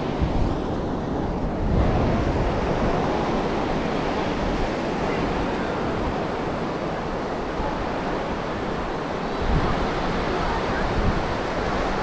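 Sea surf breaking and washing up a sandy beach in a steady rush, with wind buffeting the microphone in a low rumble.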